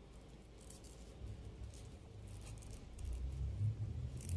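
Faint rustling and small ticks of cord being drawn through with a metal crochet hook. A low rumble builds in the last second or so.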